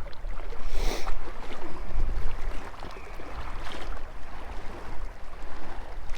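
Strong wind buffeting the microphone in a steady low rumble, with wind-driven water lapping at the shore; a short louder rush about a second in.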